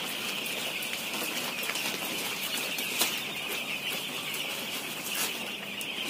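Used poultry litter husk rustling and pouring as it is shaken through a hanging net sieve onto a pile, sifting out the caked clumps, with a few faint clicks. A steady high hiss runs behind it.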